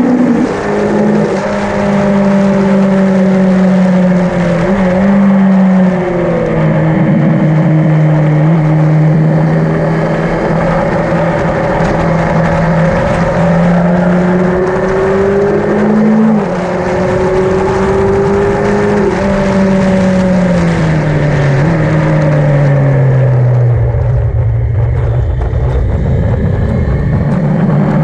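Yamaha XJ900N inline-four motorcycle engine running hard on track. Its note holds, then drops and rises in steps, sinks lower about three-quarters of the way through, and picks up again near the end.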